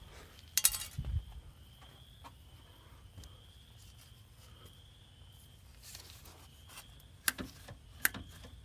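Scattered clicks and knocks of hands and tools working in a truck's engine bay, with a short hissing burst about half a second in, a low thump about a second in and a few sharper clicks near the end. A faint, high, pulsing trill runs underneath.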